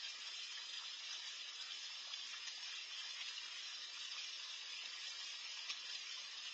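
Steady hiss of moving water in a small garden pond, with one brief click near the end.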